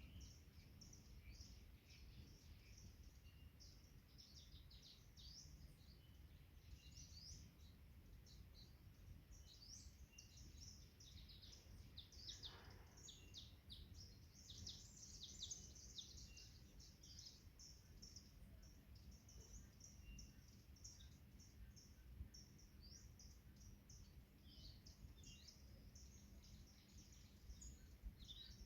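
Faint forest birdsong: many birds giving short, high chirps and trills that overlap continuously, over a low steady rumble.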